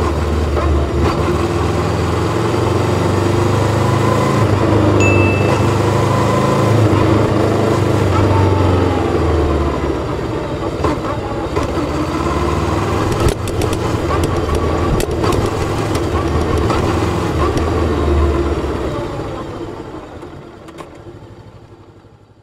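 Bristol Venturi 500 motorcycle engine running with a steady low drone, fading out over the last few seconds.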